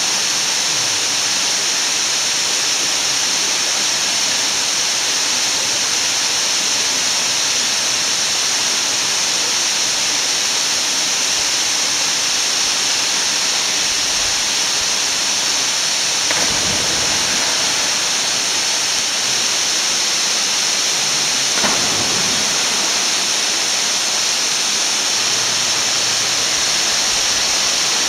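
Waterfall pouring into a pool: a steady, even hiss of falling water.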